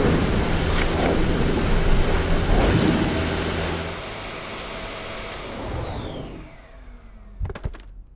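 Dyson Cinetic Big Ball cylinder vacuum running with its carbon fibre turbine tool brushing over a hard floor. About five seconds in, the motor whine falls in pitch and dies away, and a few quick clicks follow near the end.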